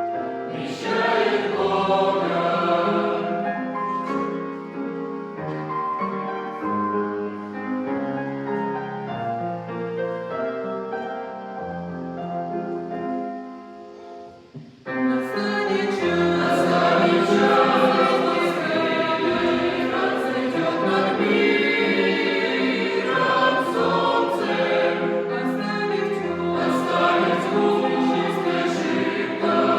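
Choir singing a song in sustained harmony. About fourteen seconds in it fades almost away for a moment, then comes back fuller and louder.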